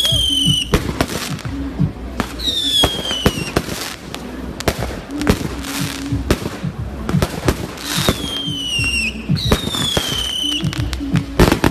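Fireworks going off: a quick, irregular run of crackling bangs, with several whistles that fall in pitch.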